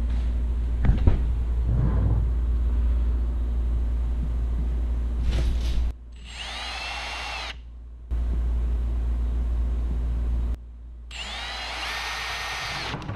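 Milwaukee Fuel brushless cordless drill spinning up twice as holes are drilled in a plastic ammo box. Each run lasts about a second and a half, with the motor's whine rising and then holding steady. Before the first run there is a steady low rumble and a couple of handling knocks.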